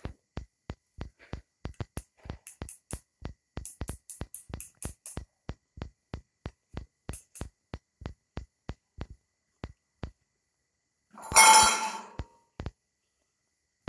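Background music with a steady, fast drum-machine beat and crisp high ticks over it, thinning to the bare beat after about five seconds. About eleven seconds in, a loud harsh burst lasting about a second cuts across, and the beat stops soon after.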